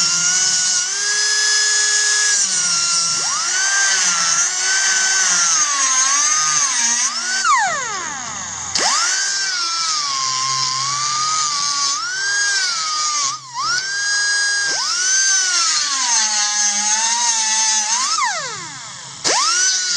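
Angle grinder notching anchor bolts, its motor whine sagging in pitch as the disc bites and rising again as it eases off, over a grinding hiss. About seven seconds in it winds down, then starts again a second later, and near the end it winds down once more.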